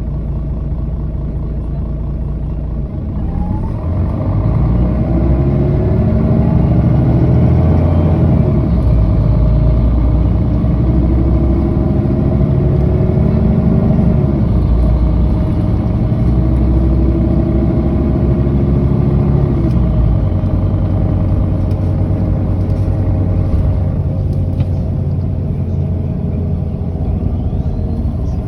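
Mercedes-Benz O530G Citaro G articulated bus's diesel engine idling, then pulling away about three seconds in. The engine note rises and drops back several times as the automatic gearbox changes up, and it settles to a steadier, slightly quieter run after about twenty seconds.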